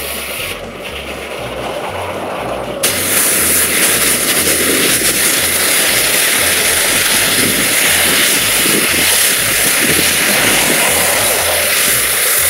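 Steam hissing loudly from a 1912 Case 110 steam traction engine, starting abruptly about three seconds in and holding steady.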